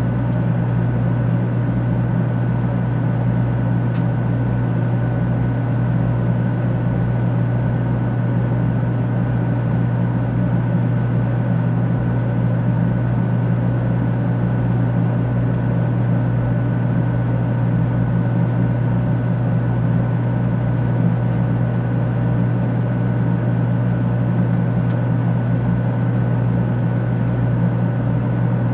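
Steady low hum inside a stationary 500 series Shinkansen car, its onboard equipment running while the train stands at the platform, with a couple of faint steady high tones over it.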